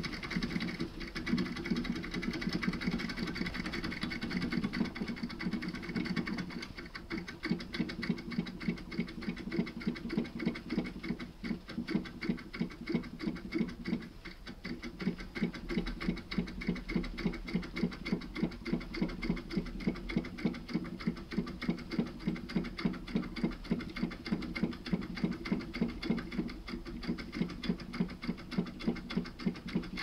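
Foil impression pick being worked back and forth inside an Iseo R7 euro cylinder lock, a rhythmic metallic clicking and rattling at about two to three strokes a second that settles into a steady beat after the first several seconds.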